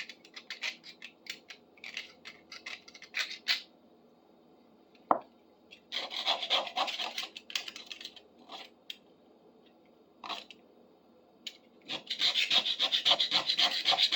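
Hand scrubbing of the rusty metal head of a fireplace poker: spurts of short rasping strokes, then fast, even back-and-forth strokes, about four a second, near the end. A single sharp knock about five seconds in.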